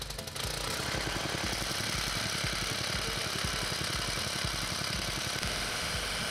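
An engine running steadily with a fast low throbbing. A rapid knocking stops about half a second in.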